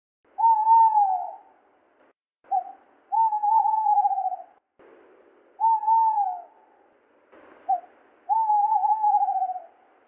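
Tawny owl's advertising song, given twice: a long hoot that slides down at its end, a pause, a brief note, then a long wavering hoot.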